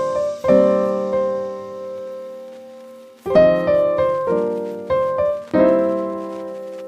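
Background piano music: chords struck and left to ring out. One long chord fades from about half a second in, and a run of quicker chords follows from about three seconds.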